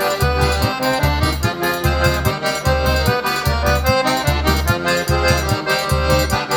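Instrumental forró pé de serra: an accordion plays the melody over a steady, regular low beat.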